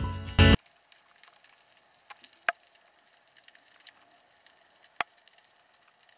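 Background music cuts off abruptly about half a second in, leaving quiet underwater ambience: a faint crackling hiss with scattered small clicks and two sharper clicks, one about two and a half seconds in and one about five seconds in.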